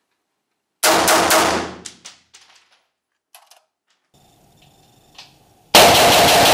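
AR-15 rifle with a standard mil-spec trigger fired in a quick string of semi-automatic shots about a second in, echoing off the walls of an indoor range. Another loud volley of shots comes near the end.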